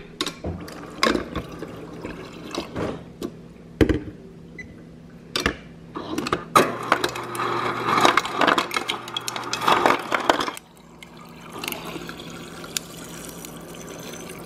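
Refrigerator door dispenser filling a ceramic mug: ice cubes clatter into the mug, first in scattered clunks and then in a dense rattling run. About ten seconds in, the clatter stops and water runs steadily into the mug.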